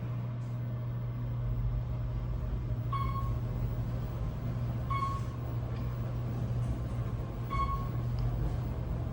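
Otis Elevonic 411 elevator car travelling between floors with a steady low hum. A short electronic beep sounds three times, about two to two and a half seconds apart: the floor-passing tone as each floor goes by.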